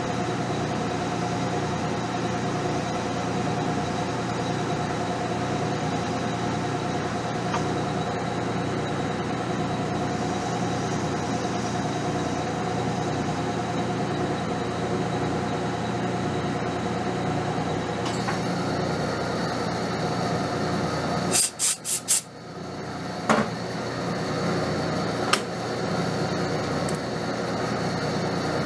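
Metal lathe running with a steady hum. About three-quarters of the way through comes a quick run of four sharp clacks, the running sound briefly drops, and a few single clicks follow.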